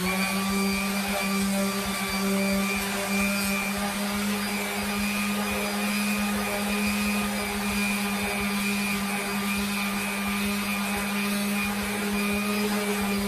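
Corded electric orbital sander running steadily with a round abrasive pad against a chrome motorcycle headlight bucket: an even motor hum with a scratchy hiss over it.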